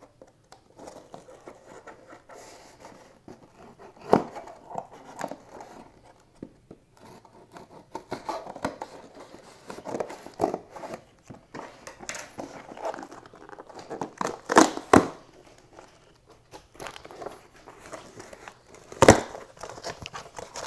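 Cardboard shipping box and its packaging being handled and torn open: scraping, tearing and crinkling, with sharp knocks about four seconds in, a pair around fifteen seconds, and the loudest one about nineteen seconds in.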